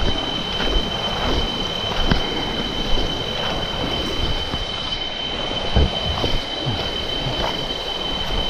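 Shallow rocky stream rushing over stones, under a steady high-pitched insect drone, with irregular thuds and crunches of footsteps on rocks and leaf litter.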